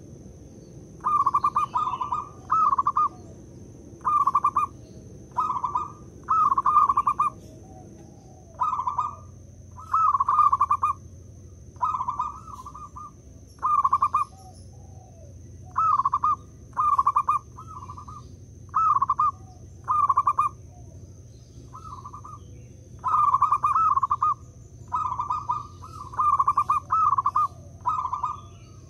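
Zebra dove (perkutut) singing its repeated cooing song: short rolling coo phrases, loud and close, about one every second or two.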